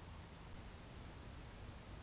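Faint steady hiss with a low hum underneath: the background noise of a trail-camera recording, with no distinct animal or event sound.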